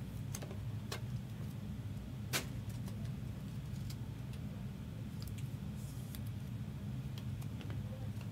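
Steady low hum with scattered small clicks and taps, one sharper than the rest about two and a half seconds in: trading cards being slid into plastic sleeves and hard cases.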